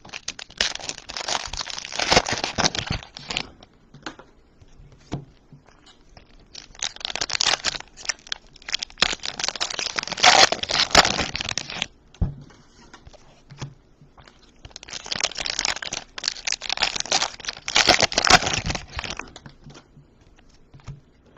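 Plastic trading-card pack wrappers being torn open and crumpled by gloved hands: three long bursts of crinkling, with quieter card handling in between.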